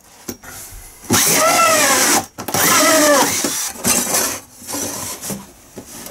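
Cordless drill fitted with a hole saw, run in two short bursts of about a second each, its motor pitch rising and then falling each time. Then a few lighter knocks and clatter of tools being handled.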